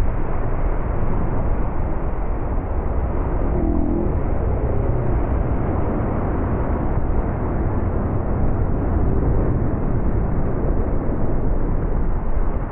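Steady wind buffeting on an action camera with water rushing and spraying past a bass boat's hull as it slews and coasts through its wake, with no engine heard; the outboard motor has just been torn off by a submerged log.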